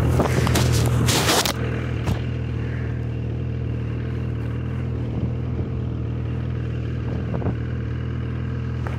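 Snowmobile engine idling steadily, with a louder rushing noise over the first second and a half.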